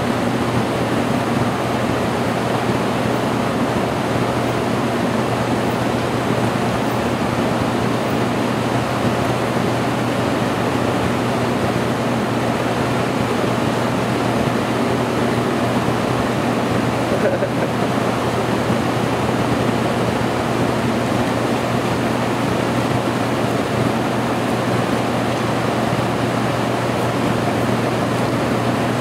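Steady roar of rushing water, even and unbroken, with a low steady hum underneath.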